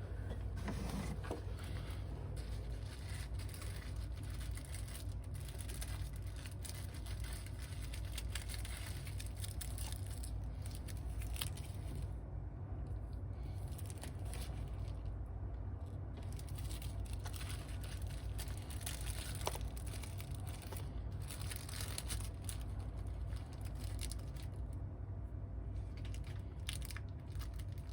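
Small plastic parts packets crinkling and rustling, with scattered light clicks, as they are handled and sorted through, over a steady low hum.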